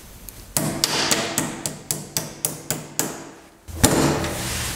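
A hammer tapping a lawn tractor's steel front spindle up into tight new bushings: about ten quick sharp strikes, roughly four a second, then a heavier knock near the end. The new bushings are a snug fit, unlike the thin, worn-out old ones that slid out easily.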